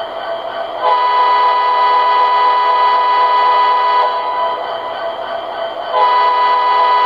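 O-scale model SD70 diesel locomotive's onboard sound system playing a multi-chime air horn over the running diesel engine: one blast of about three seconds starting about a second in, and a second blast starting near the end.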